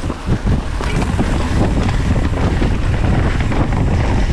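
Wind buffeting the microphone and mountain-bike tyres rumbling over a dirt trail at speed: a steady, loud low rush with constant fine chatter from the bike on the rough ground.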